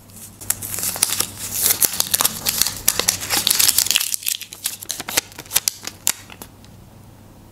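Crinkling and rustling of a handmade paper sticker being peeled from its backing and pressed down onto a notebook page. The rustling is densest in the first four seconds, thins out, and stops about six seconds in.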